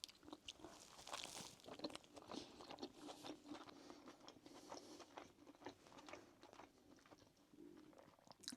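A person biting into and chewing a homemade Big Mac burger: faint, irregular soft crunches and mouth clicks, over a faint steady low hum.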